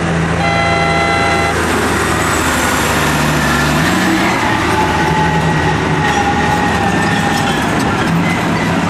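Heavy diesel engines of Caterpillar 773 dump trucks and a 375 excavator running steadily. A horn sounds once for about a second near the start. Around four seconds in, the engine note shifts as a 773 dump truck drives past close by.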